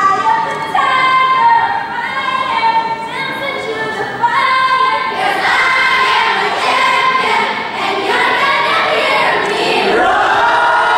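A choir of secondary-school boys and girls singing in unison, holding each note for about a second before stepping to the next, with a new, louder phrase beginning about four seconds in.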